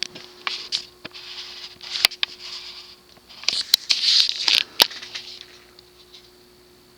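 Rustling and sharp clicks as the cast-iron spinner ceiling fan's finial-shaped variable-speed knob is turned up a notch, over the steady hum of the fan motor on its solid-state speed control. About five seconds in the rustling stops and only the hum is left.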